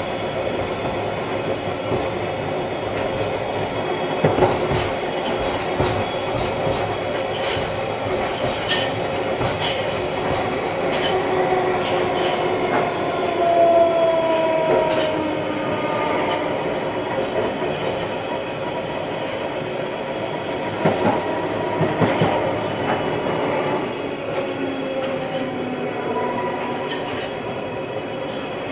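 London Underground 1973 Stock train running, heard from inside the car: a steady rumble with a traction-motor whine that slides in pitch. Clusters of clicks and knocks from the wheels come about four seconds in and again around twenty-one seconds in.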